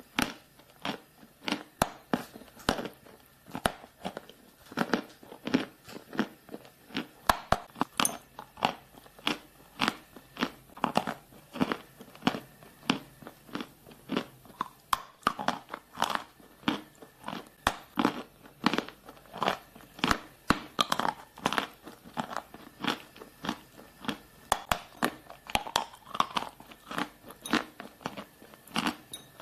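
Close-miked crunching of a chalky white substance being bitten and chewed, a steady run of sharp crisp crunches about two a second.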